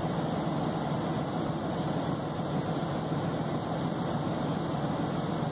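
Steady drone inside a parked semi truck's cab, its engine idling with the air conditioner running.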